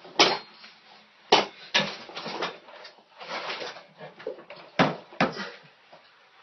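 A man pinned under a loaded barbell on a weight bench, letting out short strained grunts and gasping breaths in irregular bursts, a few of them sharp and loud.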